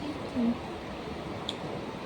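A person's short, low voiced 'mm' while eating, about half a second in, then a faint click near the end, over steady background noise.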